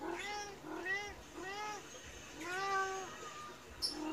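A medium Persian cat meowing repeatedly, begging for food: four meows in quick succession, the fourth drawn out longer, with another starting at the very end.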